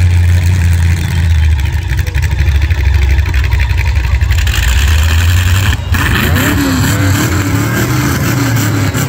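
Several demolition derby car engines running loud, with a steady low rumble. About halfway through they rise in noise, and after that they rev up and down repeatedly.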